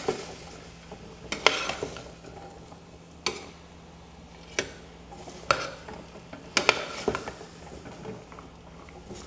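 Long-handled metal spoon stirring diced vegetables in a stainless steel stockpot, with several sharp clinks of the spoon against the pot.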